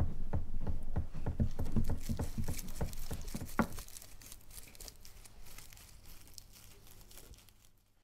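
Tissue paper rustling and crinkling as it is handled, a dense run of quick crackles that is loudest in the first half and fades away toward the end.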